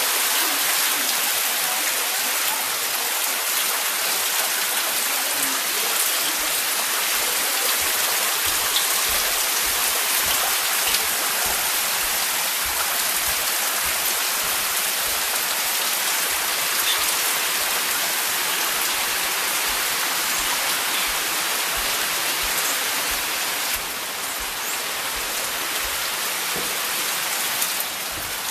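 Steady, even hiss of water, like heavy rain falling, a little quieter for the last few seconds.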